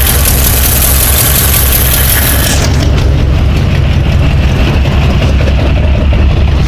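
1979 GMC truck engine idling through freshly installed Thrush glass-pack mufflers, a steady low rumble from the exhaust.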